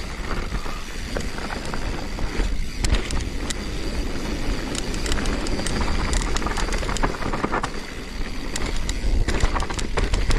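Mountain bike riding down a rough trail: steady tyre noise with many irregular clicks and rattles from the bike, over a low wind rumble on the microphone.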